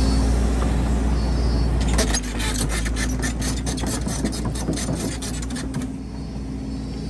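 Heavy diesel machinery, most likely an excavator, running steadily with a low hum. About two seconds in, a run of rapid metallic clattering and rattling starts and lasts about four seconds before the hum continues alone.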